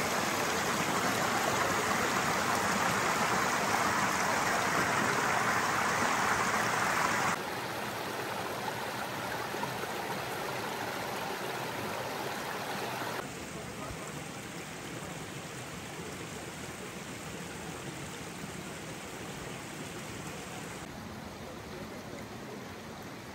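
Rushing stream water, a steady even wash of noise that drops suddenly in loudness about 7 and 13 seconds in and again near the end.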